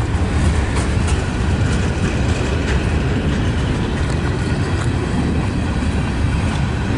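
Freight cars of a long CSX mixed-freight train rolling past: a steady low rumble with a few scattered clicks from the wheels.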